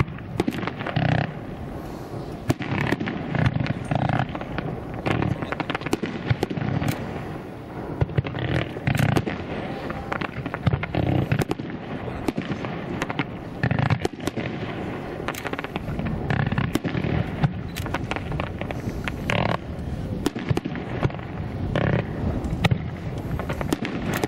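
A fireworks display: aerial shells bursting one after another in an irregular, unbroken stream of deep booms and sharp bangs.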